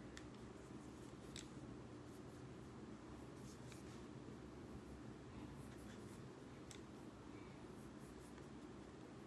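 Low steady hum with a scattering of faint, sharp clicks, the buttons of a remote control being pressed to step through DVD menu pages.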